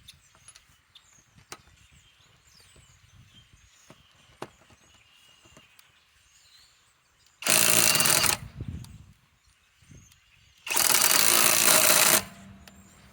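Kobalt 24V cordless right angle impact wrench hammering in two bursts, the first about a second long, the second about a second and a half, with a pause between, with a few faint clicks before them.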